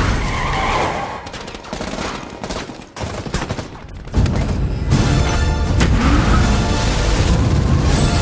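Sustained rapid machine-gun fire from the Aston Martin DB5's hidden headlight guns. It starts suddenly about four seconds in, after a quieter stretch of scattered clicks, and is mixed with trailer music.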